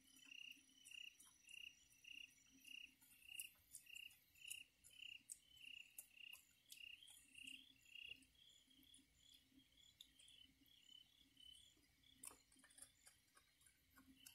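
Faint, regular chirping of a cricket, just under two chirps a second, growing softer after about eight seconds.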